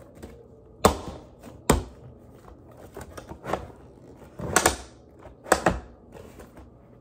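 Toy packaging being worked open by hand: scattered sharp clicks and short crackles of plastic and cardboard, the louder ones about one and two seconds in and twice more around five seconds in.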